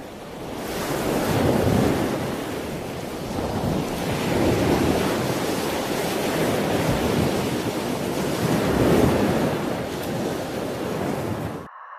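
Sea waves washing in and breaking, with wind buffeting the microphone; the sound swells and eases several times, then cuts off suddenly near the end.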